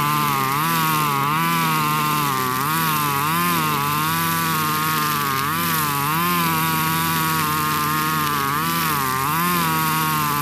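Husqvarna 542RBS 42cc two-stroke backpack brush cutter running at high revs with 2.4 mm square nylon line, cutting tall grass. Its pitch sags and recovers a little more than once a second as each swing bites into the grass.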